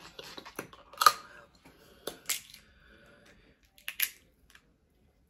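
Dungeness crab shell cracking and snapping apart, a run of sharp cracks and clicks with the loudest about a second in and two more near two and four seconds.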